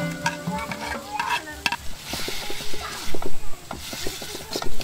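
Chopped ash gourd scraped from a plastic bowl into a hot iron wok, sizzling in the oil. A metal spatula then scrapes and knocks against the wok many times as the mixture is stirred.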